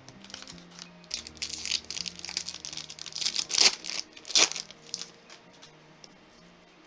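Foil booster pack wrapper crinkling and crumpling in the hands for about four seconds, with two sharp crackles near the end.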